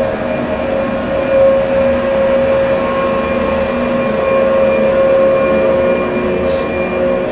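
A JR 485-series electric train ('Hana' set) rolling slowly past, giving a steady hum with a few held whining tones over the rumble of the wheels.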